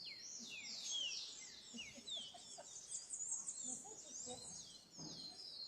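Many small birds chirping at once: a dense run of quick, overlapping high chirps and short downward-sliding notes.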